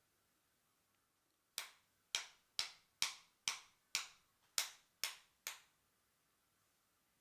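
Hammer tapping a bolt through the lower knuckle of a Shimano 600 RD-6200 rear derailleur: nine sharp metallic taps, about two a second, each ringing briefly. The bolt is being driven because it would not push through the knuckle's plastic seal by hand.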